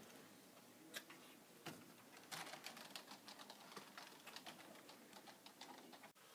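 Faint, irregular clicking of computer keyboard keys.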